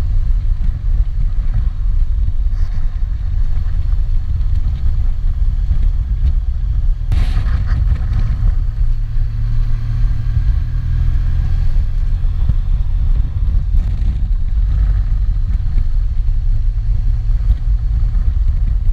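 Honda Crosstourer's V4 engine running steadily under way, largely buried in heavy low rumble from wind buffeting the camera's built-in microphone. A brief louder rush comes about seven seconds in.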